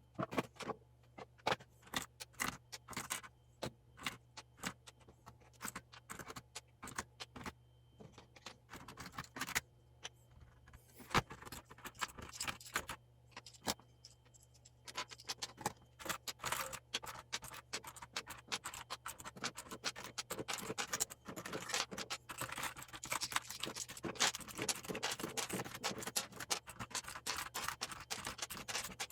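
Plastic keycaps being pried off a mechanical keyboard with a thin spatula: a run of sharp clicks as caps pop off their switches. From about halfway the clicks come thicker, mixed with scraping and scratching.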